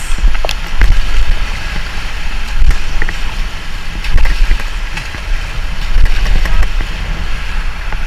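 Wind buffeting the microphone with a fluttering low rumble over the rush of river water, with a few sharp knocks.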